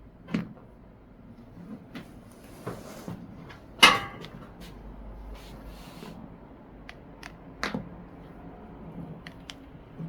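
Joints cracking during a chiropractic manipulation: a string of sharp clicks and knocks, the loudest a quick cluster of cracks about four seconds in and another strong crack near eight seconds, with soft rustling between.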